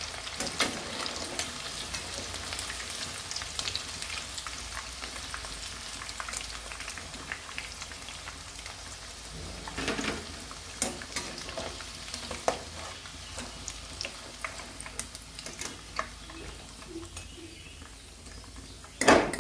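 Battered chicken pieces deep-frying in hot oil in a kadai: steady sizzling and crackling. There are occasional scrapes and clicks from a wire-mesh skimmer lifting the pieces out, and a loud knock near the end.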